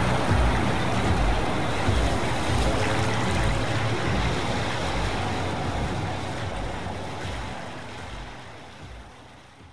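Steady rushing noise with a low hum beneath it, the masking layer of a subliminal audio track. It fades out over the last few seconds.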